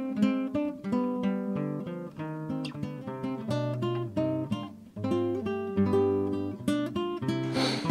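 Acoustic guitar music: a steady run of picked notes, each ringing out.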